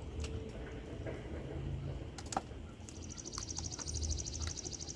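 Scattered clicks and taps of people eating, over a low rumble. From about three seconds in, a fast, evenly pulsed high-pitched trill runs to the end.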